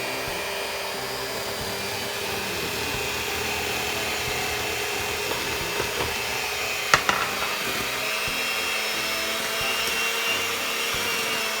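Electric mixer running steadily with a steady hum, beating the last of the flour into cookie dough, with one sharp knock about seven seconds in.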